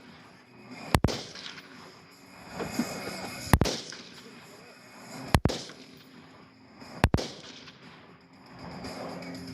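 Rifle shots fired one at a time, roughly two seconds apart, each a sharp crack: an AR-15-style rifle and an SKS shooting at a Tannerite target.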